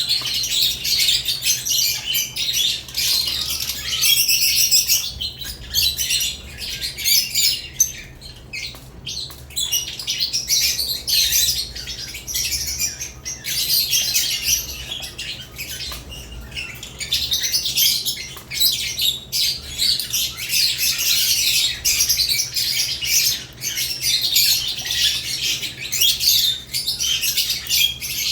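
Caged lovebirds chirping and chattering continuously in high-pitched calls, thinning briefly about eight seconds in, over a faint steady low hum.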